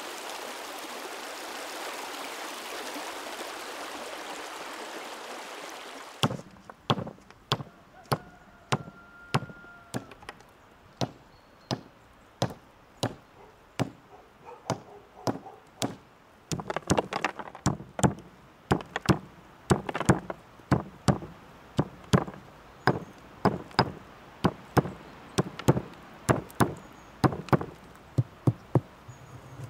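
Running river water for the first six seconds. Then a wooden mallet strikes a stone again and again to break it up, in sharp knocks about two a second that become louder and more frequent from about halfway.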